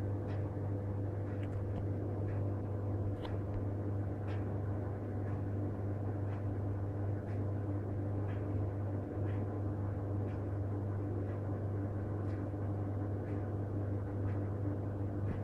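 Steady low background hum with faint, scattered clicks.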